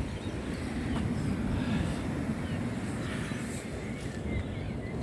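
Steady low rush of wind buffeting the microphone, mixed with the wash of choppy surf breaking on the beach.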